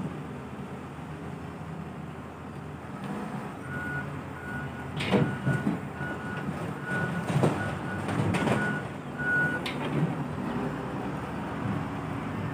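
Caterpillar wheel loader's diesel engine running while oil palm fruit bunches are dumped into a trailer, with three loud thuds and clatters in the middle. Its reversing alarm beeps evenly, about two beeps a second, from about four seconds in until near the end, as the loader backs away.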